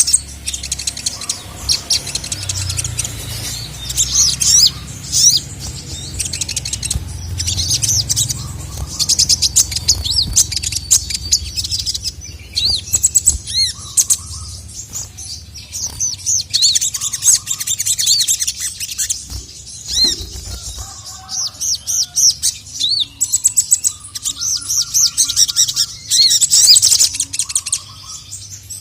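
Sogon (sogok ontong) sunbird singing: a rapid, continuous stream of high, thin chirps and trills in repeated bouts, the full, busy song that keepers call gacor.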